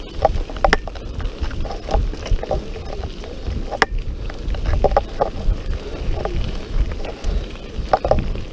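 Mountain bike rolling along a gravel forest track: a steady low rumble of wind and tyres, with scattered clicks and knocks of the bike rattling over bumps.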